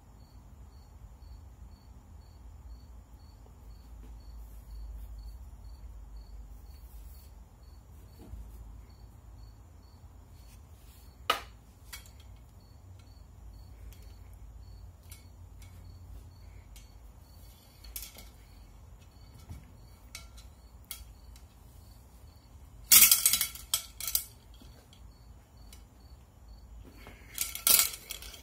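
Low steady room hum with a single sharp click partway through, then two short bouts of clinking clatter near the end as the metal cleaning rod and its brush and mop attachments are handled on the workbench.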